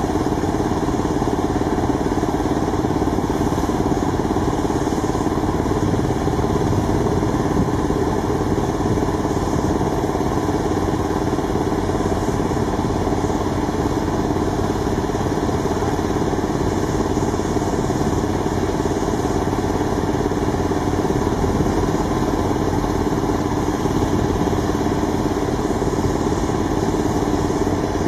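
An engine running steadily at a constant speed, an even drone that does not rise or fall.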